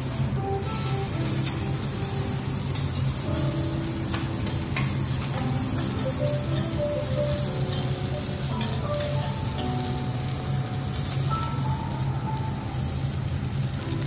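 A5 wagyu steak searing on a flat steel teppanyaki griddle, a steady sizzle of fat and juices frying.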